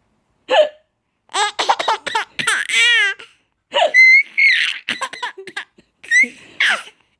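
A baby laughing in repeated high-pitched bursts and squeals. There is a short hiccup-like sound about half a second in.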